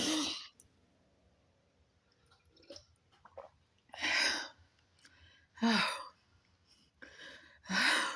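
A man blowing out short, breathy exhales and sighs, four of them about two seconds apart, a couple with a slight voiced groan, as he reacts to a mouthful he calls "so spicy".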